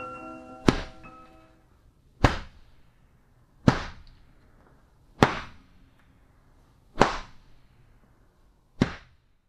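Six heavy thuds, about one every one and a half to two seconds, each sharp with a short ringing decay. A held music chord fades out under the first two.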